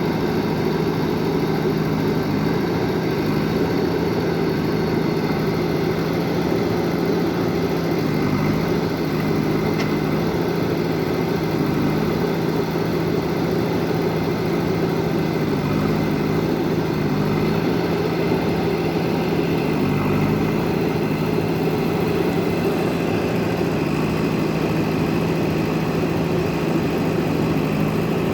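Excavator's diesel engine running steadily, its pitch shifting slightly now and then.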